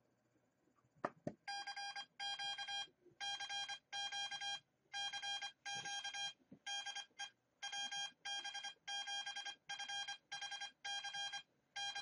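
An Arduino Morse keyer beeping out code at 25 words a minute as a buzzy on-off tone, sending "CQ CQ CQ DE WB7FHC", a ham radio general call to any station. Two clicks about a second in, just before the beeping starts.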